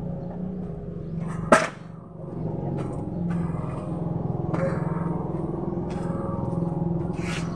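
Vehicle engine idling with a steady low hum, broken by one sharp crack about a second and a half in and a short rustling burst near the end.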